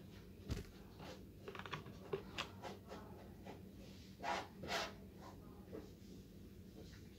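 Clothes and hangers being handled on a rack: scattered fabric rustles and light clicks, with two louder short swishes a little after four seconds in.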